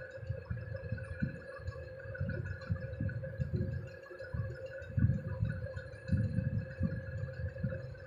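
Stovetop deep-frying: an uneven low rumble with soft thuds, a steady hum, and faint crackling of hot oil.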